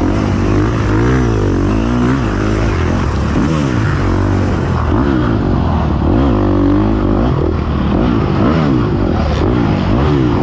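Dirt bike engine revving up and down over and over as the throttle is opened and closed, heard close up from the rider's seat.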